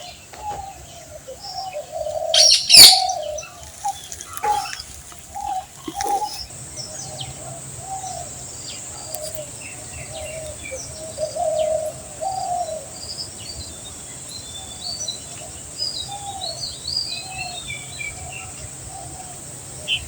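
Birds calling: a string of short, low calls repeating every half second or so, with scattered higher chirps over them. A loud sharp call stands out about two and a half seconds in.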